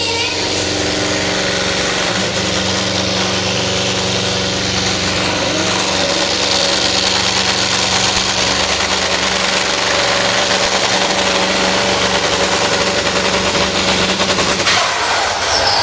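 Supersport pulling truck's diesel engine at full power, pouring black smoke as it drags the weight sled down the track, with a loud, steady rattling drone.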